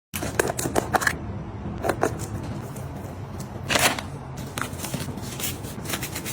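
Objects being handled: a run of irregular light clicks and rustles, with a louder rustle a little past the middle.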